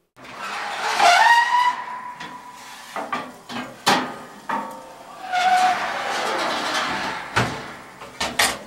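Metal roasting tray being pulled from a gas oven and set on the stovetop grate: a squeal about a second in, then clicks, scraping and several clanks near the end.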